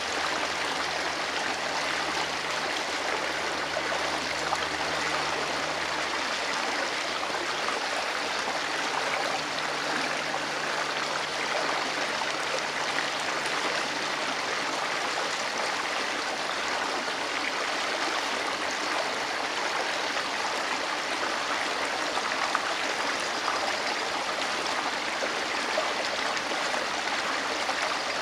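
Shallow water of a small rocky creek running over and between stones, a steady, even sound with no breaks.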